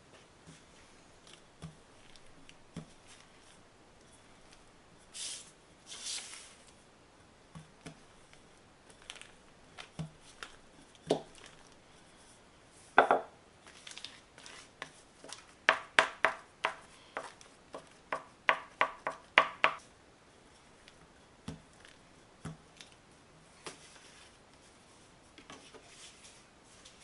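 Plastic bench scraper tapping dough edges through a zip-top bag against a wooden counter, with scattered light knocks and rustles of the plastic bag. Past the middle comes a quick run of sharp taps, about four a second.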